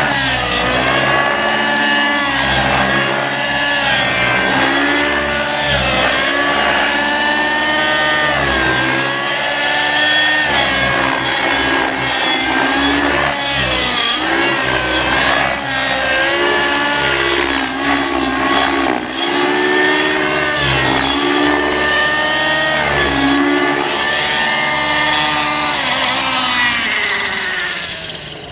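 Aeolus 50 nitro RC helicopter's glow engine and rotor running hard in flight, the pitch of its whine repeatedly rising and falling as it is thrown through manoeuvres. Near the end the sound drops away as it settles to land.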